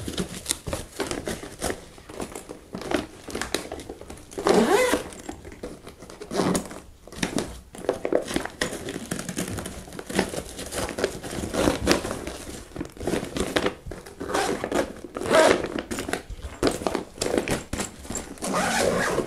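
Fabric and translucent plastic lining of a camera/FPV backpack crinkling and rustling as gear is pressed into its lid pocket, with many short rustles and knocks.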